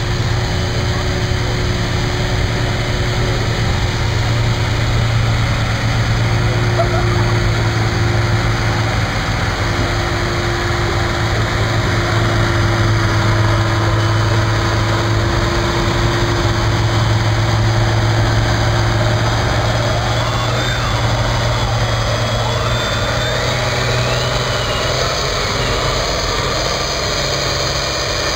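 Ford 9000 tractor's turbocharged six-cylinder diesel running hard and steady under load while pulling a weight-transfer sled, its pitch holding even and dropping slightly near the end.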